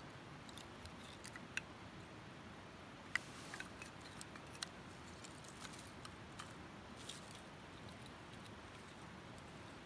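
Newly lit wood fire crackling: irregular sharp pops and ticks, a few a second at most, over a faint steady hiss.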